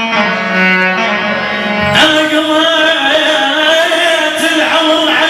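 A male singer singing an Iraqi song through an amplified microphone over backing music; about two seconds in his voice comes in loud on a long held note.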